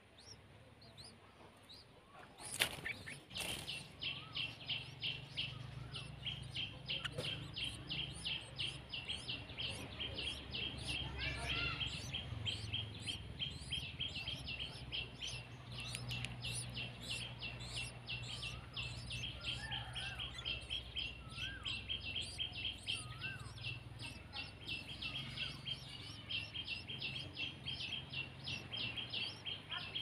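Yellow-vented bulbul nestlings begging while a parent feeds them at the nest: rapid, high, repeated chirps, about four or five a second, starting just after a sharp knock a couple of seconds in and going on without a break. A low rumble runs underneath.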